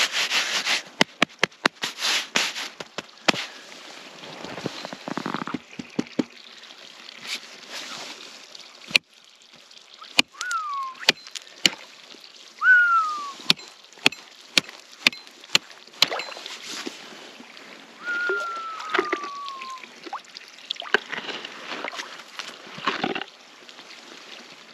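Axe striking and breaking the ice on a frozen water trough: a long series of sharp chops and cracks, with ice chunks clattering and water sloshing as the ice gives way. Three short falling whistle-like tones ring out between the blows.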